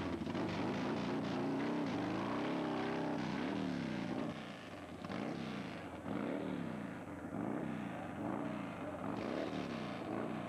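Drag-racing motorcycle engine running at raised revs, then blipped over and over, the pitch rising and falling about once a second.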